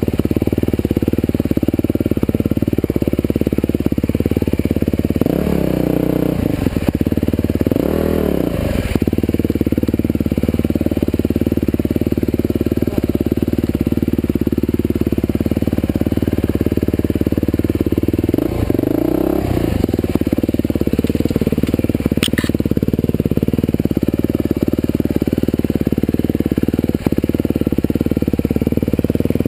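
Husqvarna TE511 single-cylinder four-stroke dirt bike engine running steadily at low revs, with short rises in revs about five, eight and nineteen seconds in.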